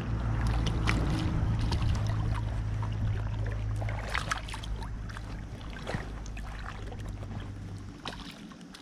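Spinning reel being cranked as a small hooked fish is drawn in, a steady low whir that stops about eight seconds in. Scattered small splashes and clicks come from the fish at the surface.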